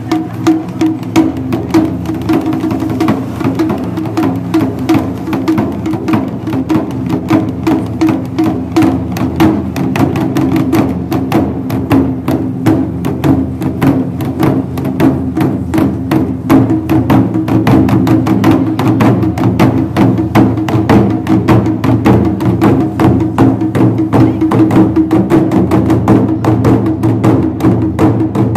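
Taiko ensemble drumming: several barrel-shaped chu-daiko struck with wooden bachi sticks in a dense run of fast strokes that grows busier and louder partway through.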